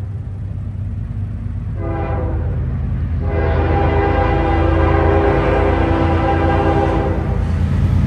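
Norfolk Southern diesel locomotive horn: a short blast about two seconds in, then a long blast of about four seconds, the closing short-and-long of a grade-crossing signal. Under it the locomotive's engine rumbles, louder as the train approaches.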